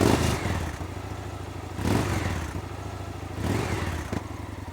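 Victory Vision Tour Premium's V-twin engine on its stock exhaust, firing up and then revved in short blips, dropping back to idle between them.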